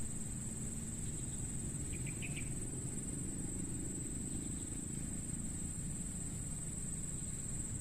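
Crickets trilling in one steady, high-pitched drone over a low background rumble, with a few faint short chirps about two seconds in.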